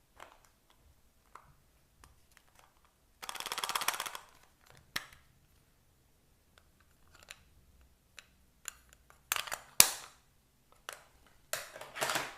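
Slime being mixed and squished by hand, giving crackling, popping bursts as trapped air breaks through it, with scattered small clicks between. Three main crackling bursts, one about three seconds in and two near the end, with one sharp loud pop about ten seconds in.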